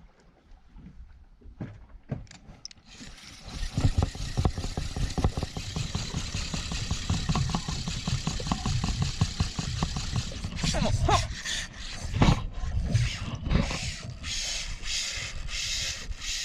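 A boat engine starts about three seconds in and keeps running.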